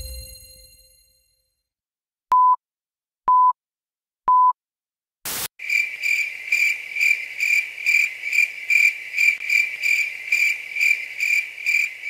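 The ringing tail of a short musical sting fades out, then three short electronic beeps at one pitch sound a second apart. After a brief burst of noise, a high chirping tone pulses about three times a second.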